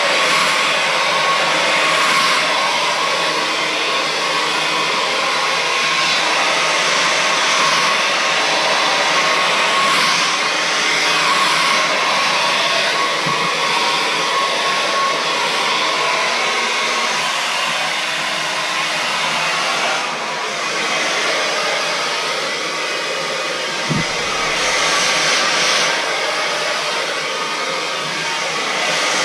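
Remington Hydraluxe Pro hair dryer with its digital motor running continuously: a steady rush of air with a high motor whine. The sound shifts twice in the later part, and there is a brief low bump just before the second shift.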